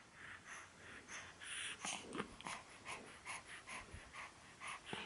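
Young baby's faint breathy snorts and little grunts, coming two or three times a second.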